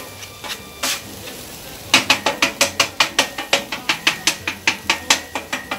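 Metal spatula chopping and scraping scrambled egg whites on a Blackstone griddle's hot steel flat top, with the eggs sizzling. About two seconds in the spatula starts a fast run of sharp clicks, roughly seven a second, that lasts nearly to the end.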